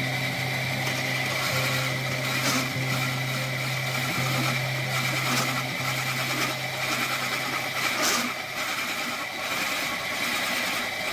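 Electric motor of a workshop power tool running steadily, with a low hum and a high whine.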